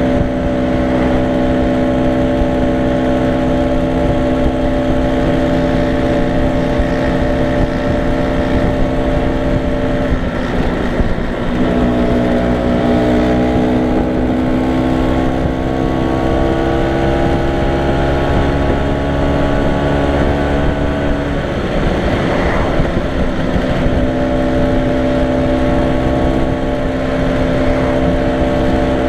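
Vintage Vespa scooter's two-stroke engine running at a steady cruise, heard from the rider's seat with wind rush. Its note falls away briefly about ten seconds in, then climbs slowly for about ten seconds. It falls away again a little after twenty seconds before settling back to the cruising note.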